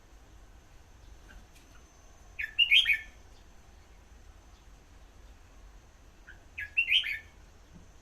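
Red-whiskered bulbul singing two short, warbled song phrases about four seconds apart, each lasting under a second.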